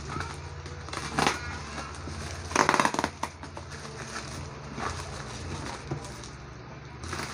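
Plastic-wrapped shipping parcel crinkling and rustling as hands pick at and peel off its packing tape, with two short sharp rips, about a second in and near the middle.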